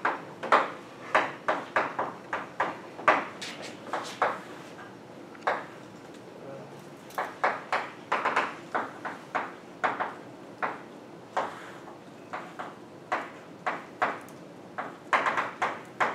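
Chalk writing on a blackboard: quick taps and short scratching strokes in clusters, with pauses of a second or two between groups.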